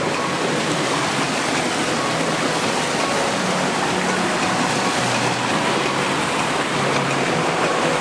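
Steady rush of a rocky stream cascading over boulders just below a waterfall, white water churning without a break.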